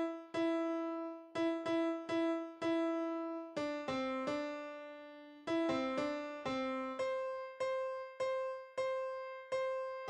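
Slow keyboard music with a piano sound: single notes and simple two-note chords struck one after another, each left to ring and fade.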